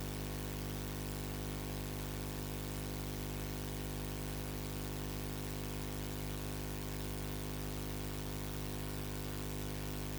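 Steady electrical hum and hiss with no other sound: the noise of an audio feed carrying no signal. The hum holds a stack of steady low tones and does not change.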